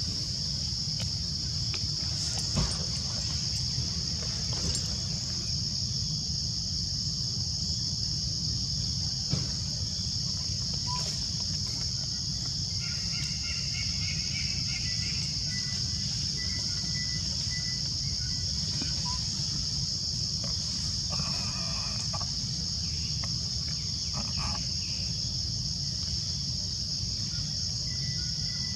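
Steady, high-pitched insect chorus over a low, even background hum, with a few faint chirps and light clicks now and then.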